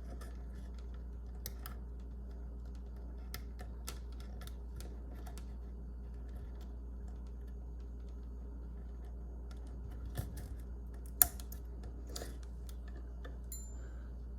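Scattered light clicks and ticks of wires and a plastic wire connector being handled, with one sharper click about eleven seconds in, over a low steady hum.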